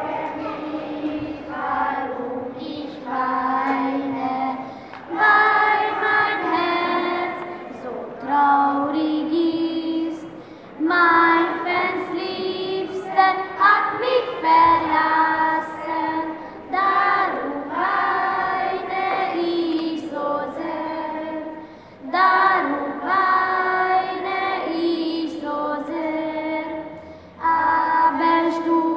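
A group of children singing a German folk song together, in sung phrases a few seconds long with short breaks between them.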